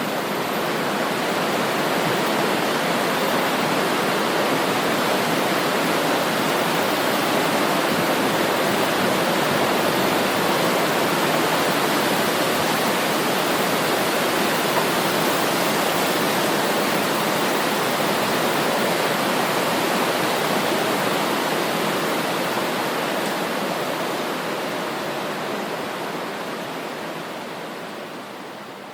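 Swift river water rushing and flowing over its bed in a steady, dense hiss, fading out over the last few seconds.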